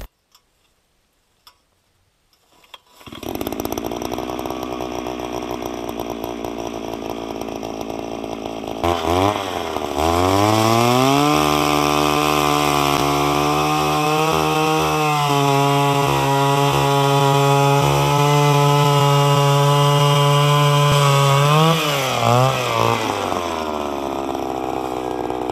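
Gas-powered ice auger's small engine coming on about three seconds in and running at a low speed, then revving up sharply about nine seconds in and running at full throttle as the auger bores through the ice. Near the end it drops back to a lower, steady idle.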